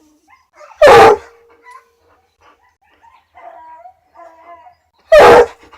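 Excited hound mother dog barking twice, two very loud single barks about four seconds apart.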